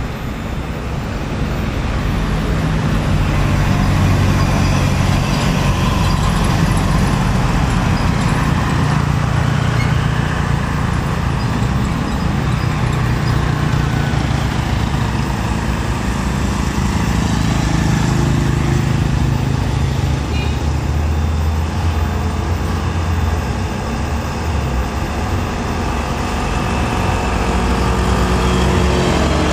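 Mitsubishi Fuso truck's diesel engine running as the truck creeps slowly forward. The revs rise for a few seconds in the middle, then settle lower near the end.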